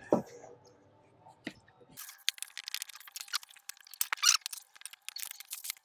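Cardboard carton and packing tape being torn open by hand. A single knock comes at the start, and from about two seconds in there is a dense run of crackling and ripping.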